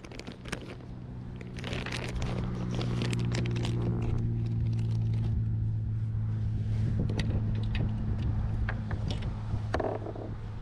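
A steady engine drone that builds over the first few seconds and then holds, with light crinkling and scraping as a soft-plastic bait bag is opened and handled.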